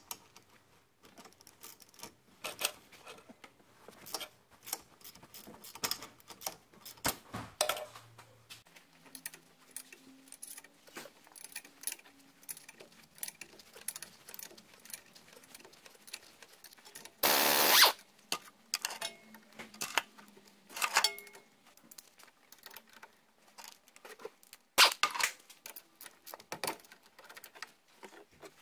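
Ratchet wrench and socket undoing the hub bearing's mounting bolts from the back of the steering knuckle: irregular metallic clicks and clinks, with one short, louder rasp a little past halfway.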